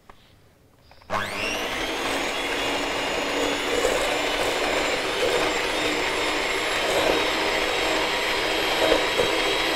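Electric hand mixer switched on about a second in, its motor quickly whining up to speed, then running steadily as the beaters cream margarine and sugar in a stainless steel bowl.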